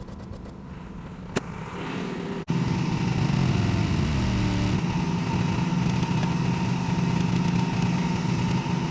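Micro excavator's 14 horsepower Briggs and Stratton engine running steadily. It is quieter at first, with a single click, then much louder after an abrupt break about two and a half seconds in.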